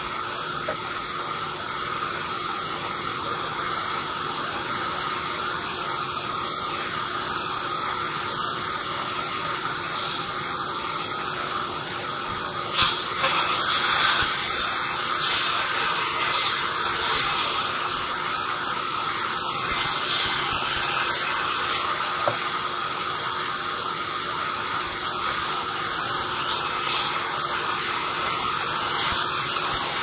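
Vertical band sawmill running steadily, its blade giving a continuous high whine over a hiss, with louder, brighter stretches in the second half. A couple of sharp knocks come a little under halfway through.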